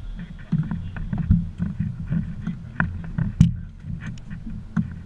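Clattering knocks from a small fish being brought aboard and handled in an aluminium fishing boat, over a steady low rumble. The loudest knock comes about three and a half seconds in.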